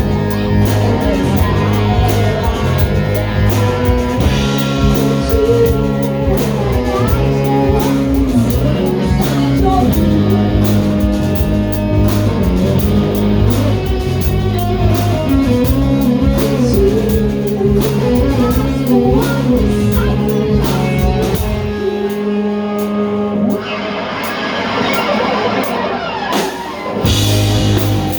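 Band playing: electric guitar over bass and a drum kit. Near the end the bass and drums drop out for about five seconds, leaving the guitar ringing, then come back in.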